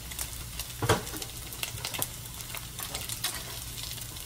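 Diced bacon sizzling and crackling in a hot skillet as a utensil stirs it, with a knock about a second in.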